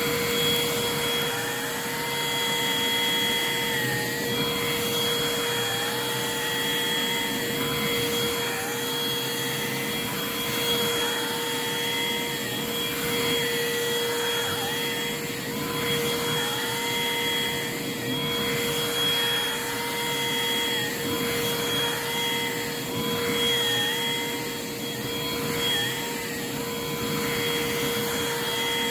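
Bissell Pet Hair Eraser cordless lithium-ion hand vacuum running with a steady motor whine. Its pitch dips briefly about every two seconds.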